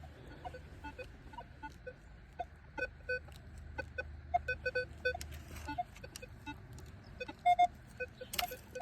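Metal detector giving short, irregular beeps at a few different pitches as its coil sweeps over the ground, with a brief scrape near the end.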